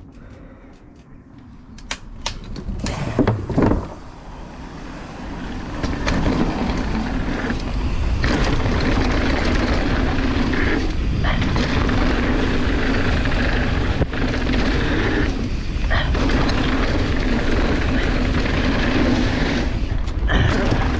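Mountain bike rolling down a wooden start ramp with a few knocks from the boards, then descending a dirt trail at speed: steady wind rush over the camera's microphone and tyre rumble, loud from about six seconds in.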